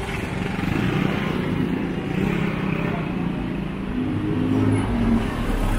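A motor vehicle's engine running close by on a busy street, over general street noise. Its engine note rises about four seconds in, and its low rumble is loudest near the end.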